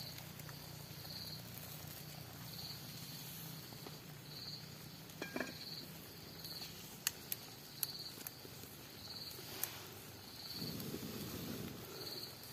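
An insect chirping in short, high pulses repeating roughly once a second, with a few sharp clicks about halfway through.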